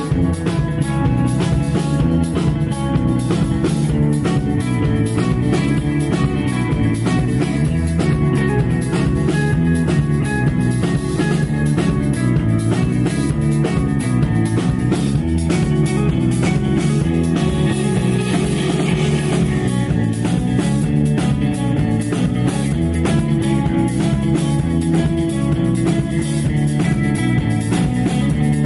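Psychedelic rock band playing: electric guitars and bass over a steady, driving drum-kit beat.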